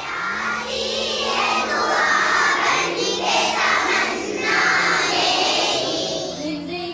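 A group of young girls chanting a supplication together in unison, many voices overlapping like a children's choir.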